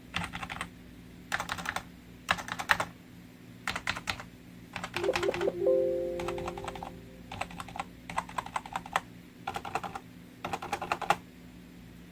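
Logitech G213 membrane keyboard being typed on in short bursts of rapid keystrokes, about eight bursts with brief pauses between them. About five seconds in, a short ringing tone sounds and fades over about a second and a half among the keystrokes.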